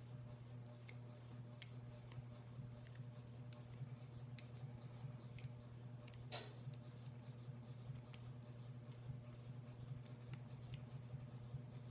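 Faint, irregular metallic clicks of a lock pick and tension wrench working the wafers of a double-sided wafer padlock, with a short scrape about six seconds in, over a steady low hum.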